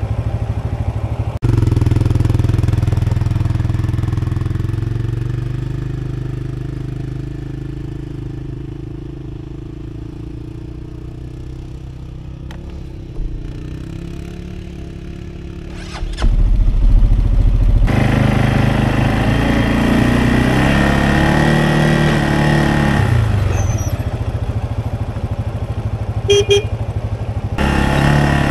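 Off-road vehicle engine running while driving a trail, growing steadily quieter over the first half and then louder, its pitch rising and falling as the throttle changes.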